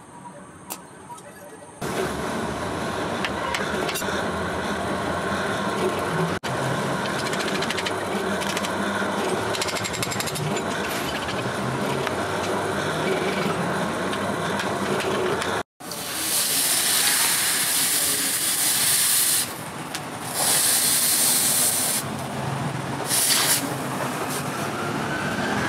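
A few faint metal taps. Then an electric drill with a twist bit boring through a steel knife tang, running steadily with chatter. After a sudden cut, a hot steel blade hisses as it is quenched in a water trough, in several bursts of steam.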